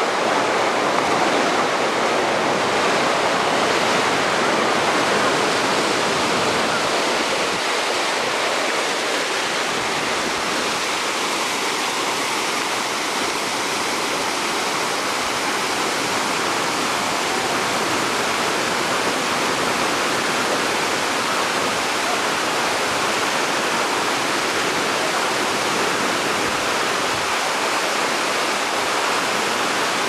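Waterfall: water pouring over rock, a steady unbroken rush.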